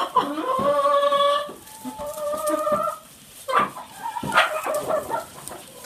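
Chicken clucking and calling: two drawn-out calls in the first three seconds, then a string of short, sharp clucks.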